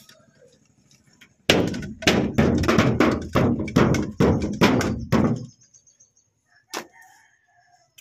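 A rapid run of about ten heavy thuds, two or three a second, stopping about five and a half seconds in, followed by a single sharp knock near the end.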